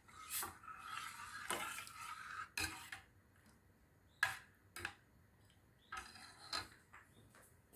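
A metal spoon stirring and scraping in a saucepan for about three seconds, then a few separate light clinks of the spoon against the pot.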